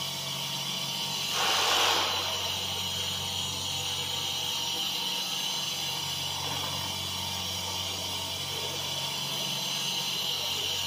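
5-axis CNC router spindle running while its tool mills a white foam block: a steady high hiss over a low hum. A brief louder rush of cutting noise comes about a second and a half in.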